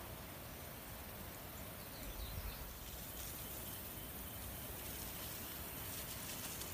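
Outdoor ambience: a steady hiss with a few faint high chirps and a brief low rumble about two seconds in.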